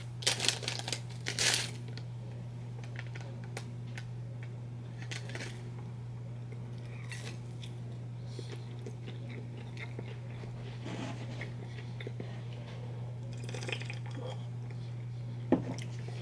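Close-miked crunching and chewing of a crispy fried hash brown: a burst of crackling in the first couple of seconds as it is handled and bitten, then scattered crisp crunches. A steady low hum runs underneath, and a single sharp knock comes near the end.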